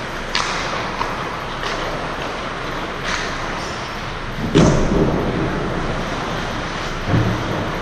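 Hockey sticks and puck clacking against each other and thudding against the boards in a rink, over a steady background hiss. There are several sharp clacks, then a heavier thud about halfway through and another near the end.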